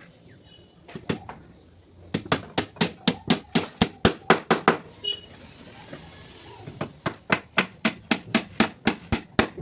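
Hammer blows on teak wood in quick runs of about five strikes a second: one run from about two seconds in to about five seconds, another from about seven seconds to the end, with a single blow about a second in.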